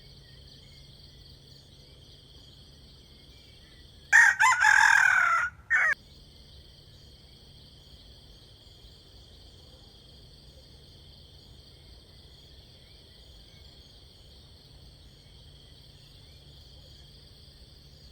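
A rooster crows once, about four seconds in, a single crow of under two seconds ending in a short final note. Insects chirr steadily and faintly throughout.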